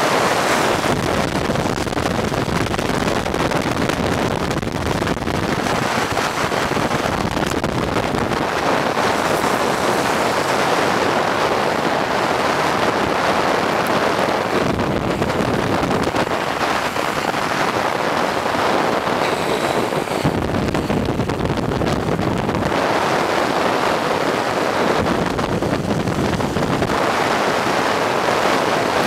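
Wind rushing over the microphone at downhill-skateboarding speed, mixed with road noise of wheels rolling on asphalt. The rush swells and eases every few seconds.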